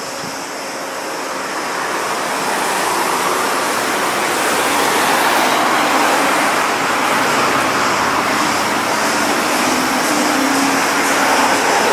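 Street traffic: cars driving past on a town street, a steady wash of road noise that grows louder over the first few seconds.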